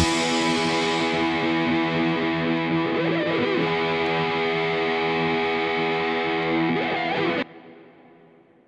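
Rock music with a distorted electric guitar holding one chord, which cuts off sharply near the end and rings away to silence.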